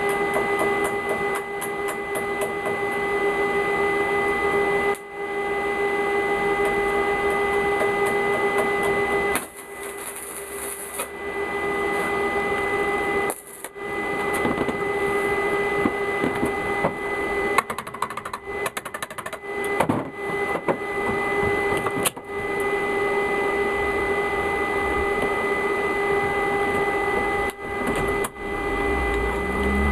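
Electric arc welding: a steady buzzing hum with crackle, stopping and restarting several times between welds.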